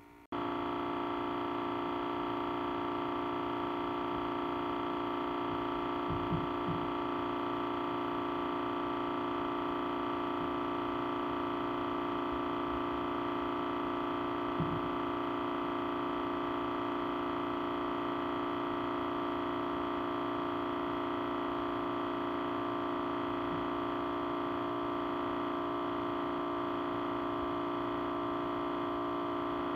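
Audio feedback drone: many steady tones held together without a break, starting abruptly just after the start, with a faint low knock or two partway through.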